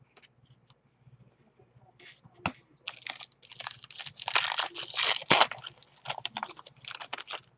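Plastic trading-card pack wrapper being torn open and crinkled: a sharp snap about two seconds in, then several seconds of dense crackling and rustling that dies away near the end.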